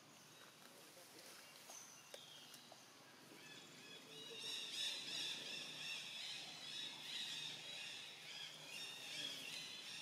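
Macaques calling: several overlapping high, wavering cries start about three to four seconds in and keep on. Before that there are only a few faint snaps and short chirps.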